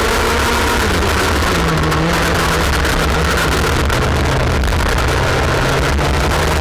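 Junior X30 kart's IAME 125cc two-stroke engine heard from an onboard camera, with a heavy rushing noise on the microphone. The engine note dips about a second in, then wavers up and down through the corners.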